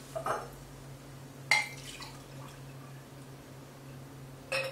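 Glass measuring cup clinking and knocking three times, the loudest about a second and a half in and the last one ringing briefly, with faint liquid dripping, over a low steady hum.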